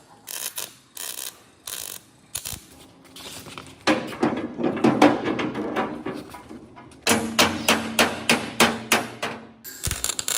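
Hammer blows and knocks on metal engine parts. Scattered single strikes come first, then a denser stretch of knocking, then a quick run of about five blows a second near the end.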